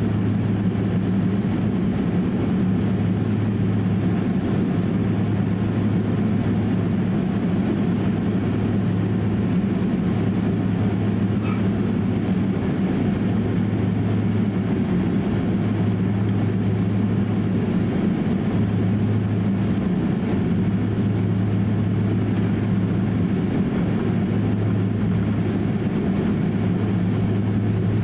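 Cabin noise of a Boeing 767-300 taxiing, its jet engines at low taxi power: a steady low hum and rumble that holds an even level throughout.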